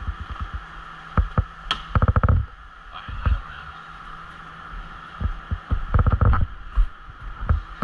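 Irregular soft thumps and knocks of footsteps and handled gear, with two quick rattling flurries about two and six seconds in, over a steady hum.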